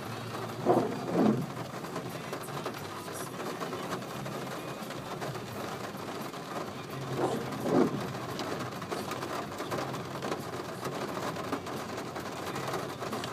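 Heavy rain drumming on a car, heard from inside the cabin, with the windscreen wipers swishing across the glass twice: once about a second in and again about seven and a half seconds in, each pass an out-and-back pair of strokes.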